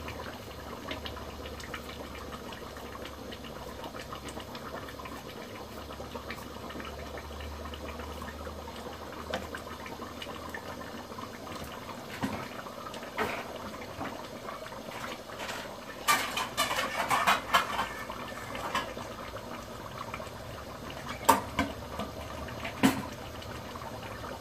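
Mutton curry boiling in a pot on a gas stove, a steady bubbling hiss. Utensils clatter for a couple of seconds about two-thirds of the way through, and there are two sharp knocks near the end.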